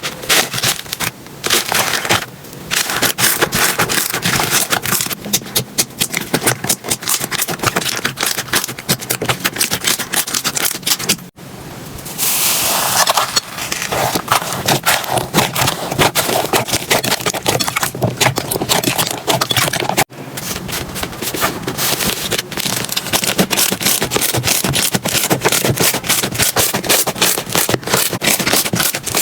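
Hands squeezing, poking and stretching slime, making a dense run of wet crackles and popping clicks. The texture changes abruptly twice, about 11 and 20 seconds in.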